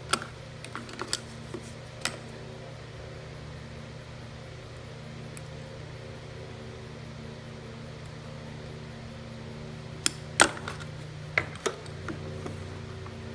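Sharp metallic clicks and snaps of pliers working a spring hose clamp onto the fuel line at a small-engine carburetor. There are a few in the first two seconds and a quick cluster about ten seconds in, over a steady low hum.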